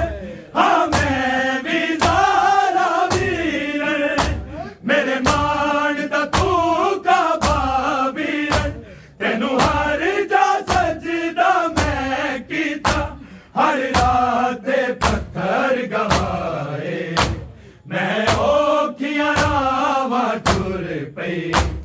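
Male noha reciters chanting a Punjabi noha in a drawn-out, mournful melody, kept in time by a steady beat of sharp chest-beating slaps (matam) from the mourners.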